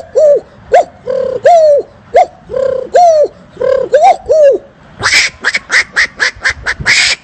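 A man imitating animal sounds with his mouth: a string of short, birdlike calls that rise and fall in pitch, some clipped and some drawn out, then about five seconds in a switch to a fast run of harsh, raspy bursts, about five a second.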